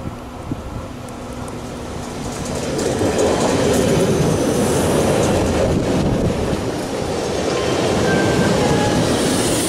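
Electric regional passenger train passing close by, its coaches' wheels rumbling over the track. The sound swells as the leading cab reaches the spot about three seconds in and stays loud as the coaches roll past.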